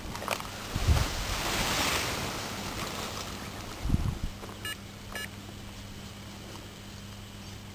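Wind rushing over the microphone, swelling about a second in and easing off, with two low thuds, then a steady low hum.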